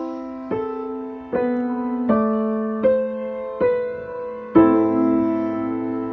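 Piano playing block chords in E minor, a new chord about every three-quarters of a second, with a longer-held chord about four and a half seconds in: a passage leading to a perfect cadence.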